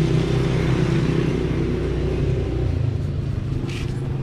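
An engine running steadily with a deep, even rumble that eases off about three seconds in.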